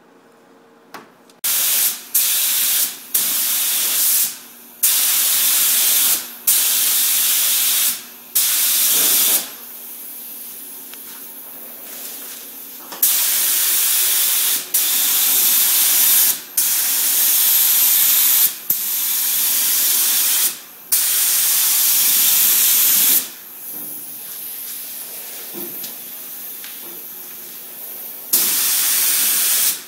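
Gravity-feed spray gun spraying primer, its compressed air hissing in repeated bursts of one to three seconds as the trigger is pulled and released, with a few longer pauses between passes.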